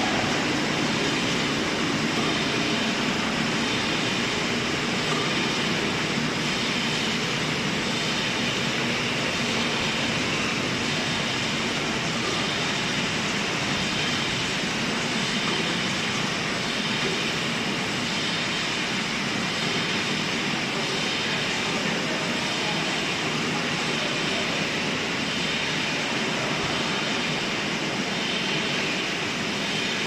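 Bottle washing, filling and capping line running: the rotary machine and its conveyors make a steady, even mechanical din with a hiss, unchanging throughout.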